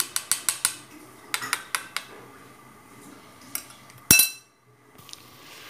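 Metal spoon clinking against the side of a bowl while stirring tomato paste into a little water: quick runs of light taps, then one louder, ringing clink about four seconds in.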